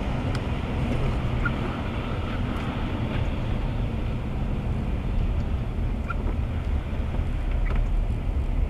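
Steady road noise inside a moving car on a wet road: tyres hissing through water over a low rumble, with a few faint ticks.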